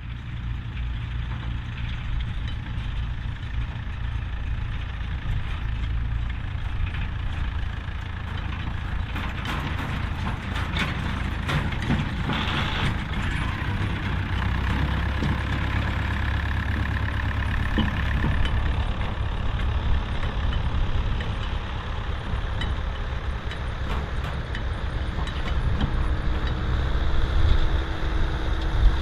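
David Brown 990 tractor's four-cylinder diesel engine running steadily while driving a McCormick International F5-91 hay baler, with scattered mechanical clicks and knocks from the baler working.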